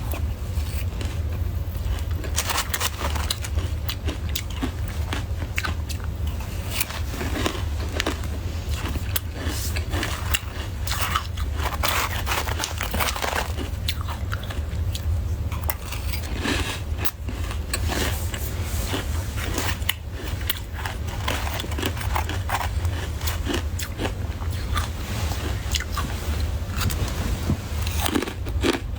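Soft white ice (freezer frost) being bitten and chewed: a continuous, irregular run of crisp crunches. A steady low hum sits underneath.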